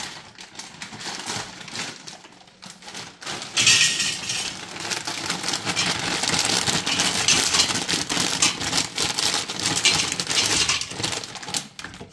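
Frozen french fries pouring from a plastic bag into an air fryer's nonstick basket, a dense clattering rattle of frozen sticks against the pan. It starts about three and a half seconds in, after a few lighter clicks and rustles.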